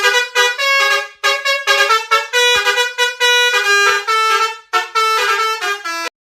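Basuri telolet bus horn playing a fast melody of short, stepped horn tones with brief gaps between phrases, cutting off suddenly near the end.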